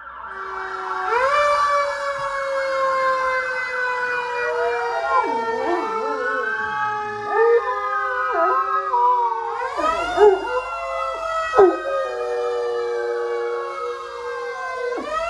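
Fire engine sirens wailing from a television, joined from about five seconds in by a Great Dane howling along, his howls rising and falling in pitch under the sirens.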